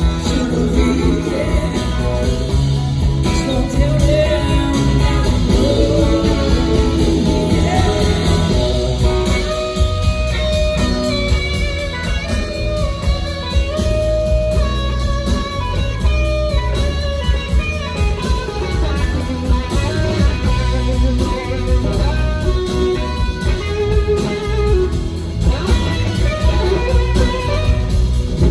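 Live rock band playing at full volume, with electric guitars, bass and drums. A woman sings over it in the first several seconds, and from about ten seconds in an electric guitar lead carries on without vocals.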